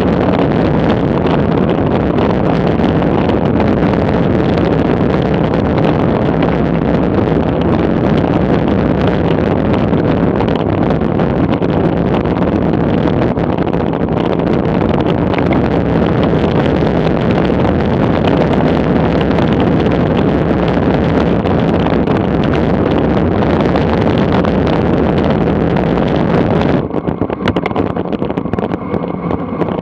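Wind rushing over the camera microphone on a bicycle descending at speed: a loud, steady rumbling noise, with the hiss thinning out near the end.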